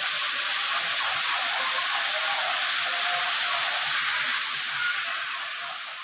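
Steady rushing of water from a waterfall or stream, an even hiss that fades near the end.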